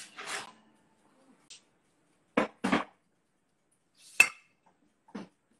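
Kitchen clatter as a baking dish comes out of the oven: two dull knocks close together, then a sharp ringing clink about four seconds in, the loudest sound, and a softer knock near the end.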